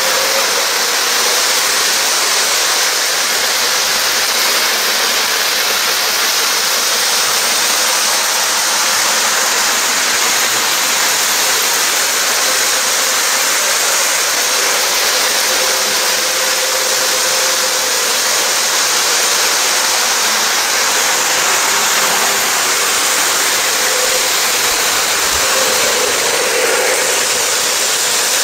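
Several model trains running on floor-laid track: a steady whir and rumble of wheels and motors, with a passenger car passing right by near the end.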